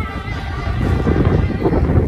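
Strong wind buffeting the microphone in a heavy, gusting rumble, over bon odori dance music with a singer.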